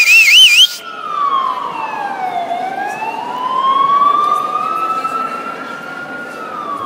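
Recorded police-style siren played over a hall's sound system: a fast warbling yelp that cuts off under a second in, then a slow wail that falls in pitch, bottoms out about two and a half seconds in, and rises again.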